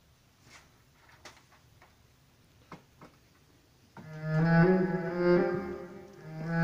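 A few faint clicks, then about four seconds in an amplified solo cello with reverb starts a fast bowed passage of slurred notes, swelling louder and easing off twice.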